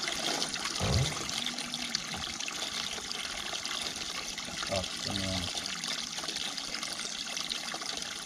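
Steady trickle of running water with a constant hiss.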